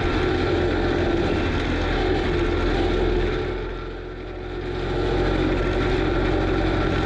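Kubota SVL95 compact track loader's diesel engine and FAE forestry mulcher head running together, a loud steady mechanical drone heard from on top of the machine. About halfway through the sound drops off for a moment, then builds back up to full.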